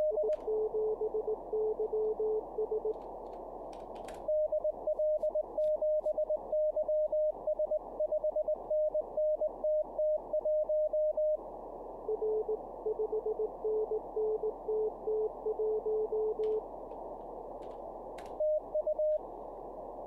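Simulated CW contest audio from Morse Runner: Morse code tones keyed over band-filtered static. A long run of higher-pitched Morse, his own sending, has the static cut in and out between the dits and dahs with QSK full break-in on. Lower-pitched replies from a simulated station come before and after it, and a few computer keyboard clicks come from typing into the logging fields.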